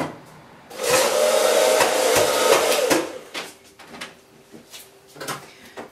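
Handheld hair dryer blowing on the iced-up freezer compartment to melt the ice, running steadily for about two seconds before it cuts off. A few short knocks and scrapes follow.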